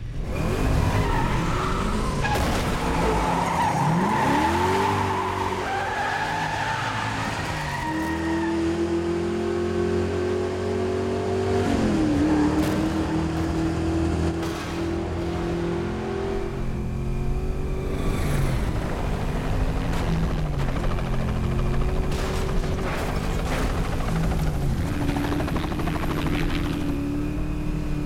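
A V8 muscle car engine revving hard at speed. It climbs and holds high revs, drops briefly about twelve seconds in as it shifts gear, and climbs again. Tyres squeal during the first several seconds.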